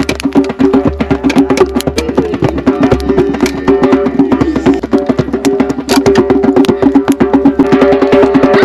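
Music: fast clicking percussion over two steady held low notes.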